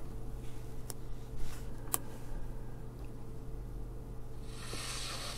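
Steady low hum with a few sharp clicks, then FM radio static hiss swelling in through a speaker about four and a half seconds in: the home-built Hex3653 FM receiver module powered on but not yet tuned to a station.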